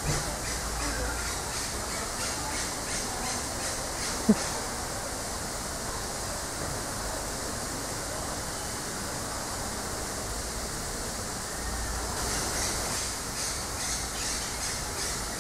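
Outdoor ambience with a fast, steady high-pitched pulsing that fades in the middle and returns near the end, and one short, loud call sliding down in pitch about four seconds in.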